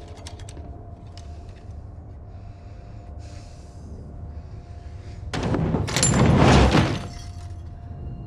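Steady low rumble and hum inside a moving train, with a few faint clicks at the start. About five seconds in, a loud burst of rushing noise lasts under two seconds.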